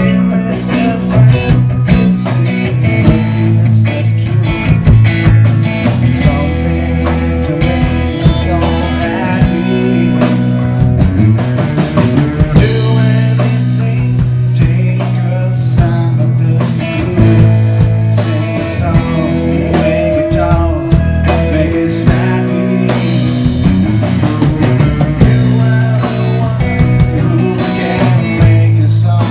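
Live rock band playing: electric guitar and bass guitar over drums, loud and continuous.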